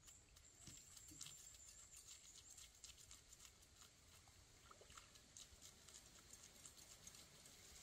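Near silence: faint scattered clicks and light taps, with a faint high steady whine throughout.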